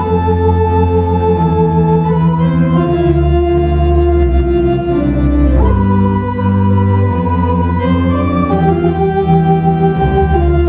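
Theatre pipe organ playing slow, sustained chords over a held bass, changing chord every two or three seconds, with its vibrato effect switched on.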